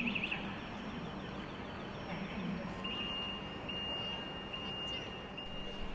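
City street ambience, a steady background din, with a brief warbling electronic tone at the start and then a high electronic beep sounding four times in a row from about halfway through.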